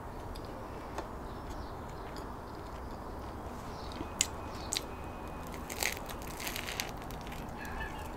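Chewing, then a crusty baguette sandwich crackling as it is handled and lifted for another bite, with a few sharp clicks and a run of crackles about six seconds in.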